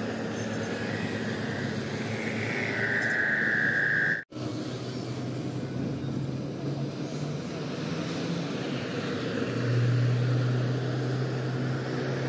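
Diesel engines of heavy oil tanker trucks passing on a highway: a steady low engine drone with road noise. A high steady tone sounds for about a second just before a sudden cut about four seconds in, and the engine drone grows stronger near the end.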